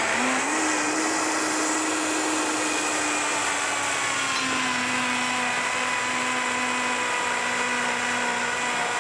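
Countertop blender running steadily, blending a thick vegetable-based cheese sauce. Its motor pitch drops slightly about halfway through.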